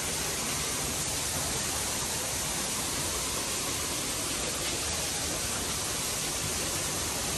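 Steady rushing of a small waterfall pouring into a pond, an even hiss with no breaks.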